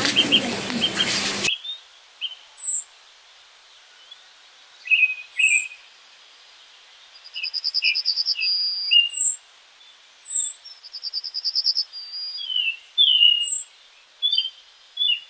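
Several birds chirping and singing: short high whistles falling in pitch, rapid trills and scattered brief chirps. For about the first second and a half a loud rushing noise covers them, then cuts off suddenly.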